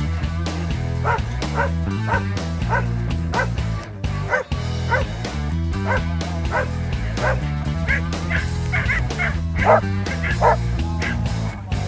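Border collie search dog barking repeatedly in short single barks, a little under two a second, over background music. It is giving its bark indication, barking up into a pine tree during search training.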